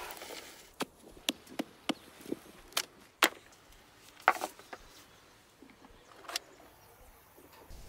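Handling sounds from preparing a raw ram carcass: about ten sharp clicks and slaps at irregular intervals, the loudest a little past one third of the way in.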